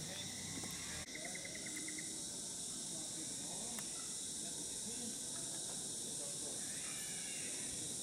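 Steady, high-pitched insect chorus, with a short rapid trill about a second in.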